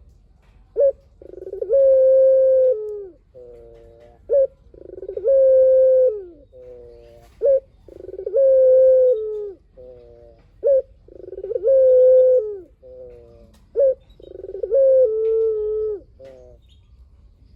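A Barbary dove (puter) cooing its phrase five times at an even pace, about every three seconds. Each phrase is a short note, then a long held coo that drops in pitch at its end, then a quick run of short notes stepping down.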